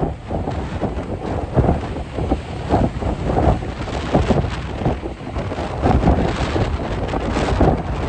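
Strong blizzard wind buffeting the microphone in irregular gusts, drowning out most other sound.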